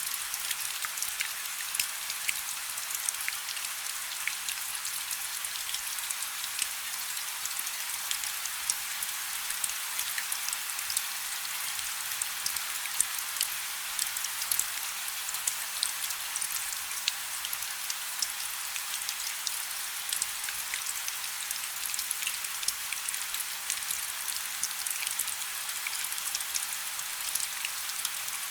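Steady rainfall: an even hiss with many separate drops ticking sharply through it.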